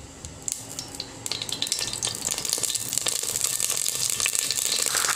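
Cooking oil just poured into a heating stainless steel pot, sizzling and crackling. It starts faint and grows louder over the first second or two, then holds steady.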